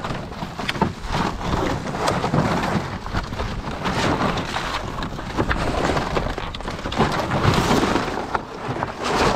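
Stacked plastic planks being lifted and shifted layer by layer: a dense run of scraping, rattling and knocking as the boards slide against and drop onto each other.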